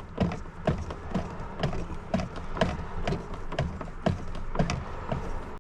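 Regular clicking knocks, about two a second, as a screwdriver backs out a screw holding a car's interior trim panel.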